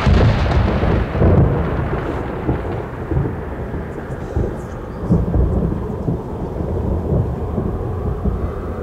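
Rolling thunder with a hiss of rain: a deep, irregular rumble with louder swells about a second in and again around five seconds in, while the rain hiss fades over the first couple of seconds.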